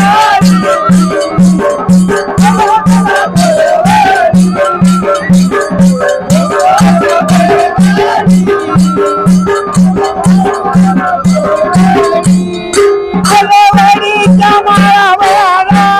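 Dhangari ovi folk song: men singing together to a steady beat on a steel-shelled barrel drum (dhol) and clashing brass hand cymbals.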